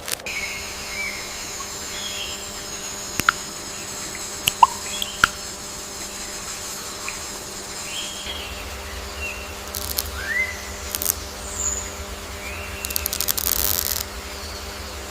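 Rainforest ambience: steady high insect buzzing, scattered short rising chirps and a few sharp clicks over a steady low hum.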